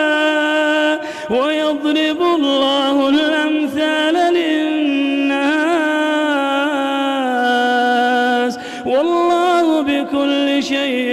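A man's solo voice reciting the Quran in a melodic, drawn-out style (tajwid), holding long notes with ornamented pitch turns. There are brief breaks about a second in and again near eight and a half seconds.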